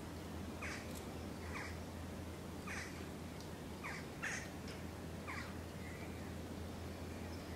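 A flock of birds in flight calling: about six short calls spread over the few seconds, each dropping in pitch, over a faint steady low hum.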